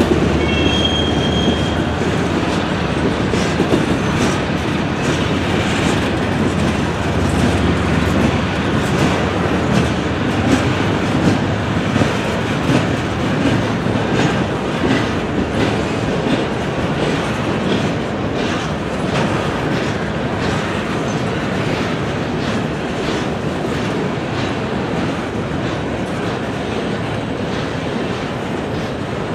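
Freight train cars, boxcars then autoracks, rolling past. Their steel wheels clatter steadily over the rail joints, and there is a short high-pitched wheel squeal about a second in.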